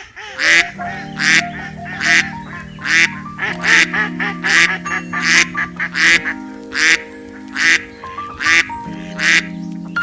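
Music with held chords, with duck quacks repeating over it, about one a second and quicker runs of them in the middle.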